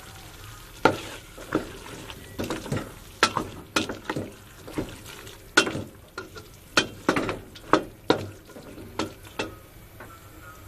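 A cooking utensil scraping and knocking against a metal pan as chayote strips in tomato sauce are stir-fried, in irregular strokes about one or two a second that start about a second in. A low, steady sizzle runs underneath.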